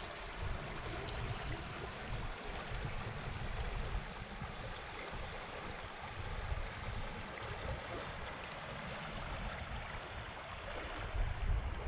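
Shallow river flowing over gravelly riffles, a steady rushing hiss, with wind buffeting the microphone as a low, uneven rumble underneath.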